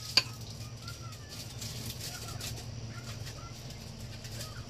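A spoon clinks once sharply against the plate, then faint short bird chirps come and go over a low steady hum.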